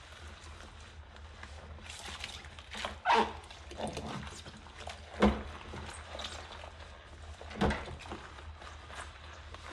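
Yellow rubber gloves and a sponge scrubbing a drinking glass in soapy dishwater: soft rubbing and squelching, with a few louder sharp sounds about three, five and seven and a half seconds in. A steady low hum runs underneath.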